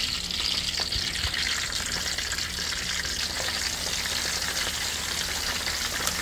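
Hot grease sizzling and crackling steadily around a basket of smoked chicken wings freshly dropped into a deep fryer pot.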